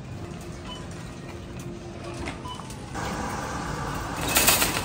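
A loaded shopping cart being pushed through a supermarket, with store background noise and faint music. About three seconds in, louder outdoor noise takes over, with a hissing rush near the end.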